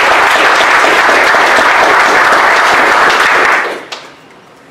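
Audience applauding: dense, steady clapping that dies away about three and a half seconds in.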